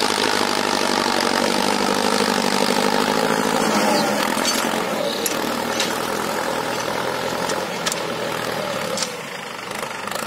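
Mahindra Arjun Novo 605 tractor's diesel engine running steadily under load while it pulls a disc harrow through dry field stubble, with a few sharp clicks in the second half.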